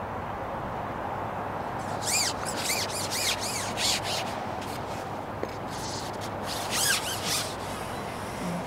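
Fishing pole being shipped out, squeaking and rubbing as its sections slide out: two runs of short, high squeaks, one about two seconds in and another near seven seconds, over a steady outdoor background hiss.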